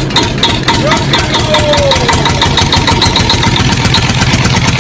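Kitten making a steady, rhythmic rumble close to the microphone, like a small idling engine, without a break.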